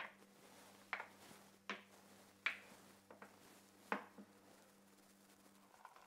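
Glass jars and a glass mixing bowl set down one after another on a wooden cutting board: about six light knocks and clinks over the first four seconds.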